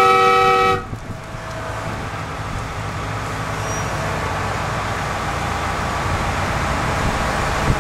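McKeen motor car No. 22 finishes a horn blast about a second in. Its engine then runs as the car pulls away, growing slowly louder.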